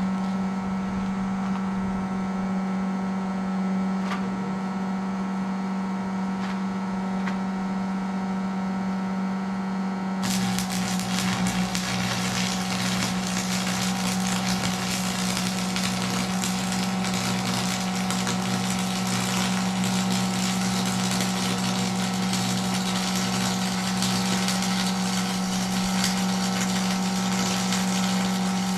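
Electric arc welding: a steady electrical hum, then about ten seconds in the arc strikes and a continuous, even crackling hiss runs over the hum for the rest of the time.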